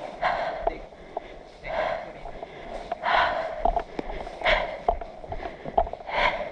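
A person breathing heavily close to the microphone: five breaths about a second and a half apart, with faint clicks between them.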